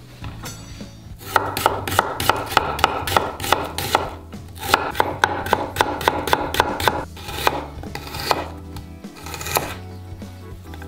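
Chef's knife slicing half an onion into thin slices, the blade tapping on a bamboo cutting board at about three cuts a second in two quick runs, then a few single cuts near the end.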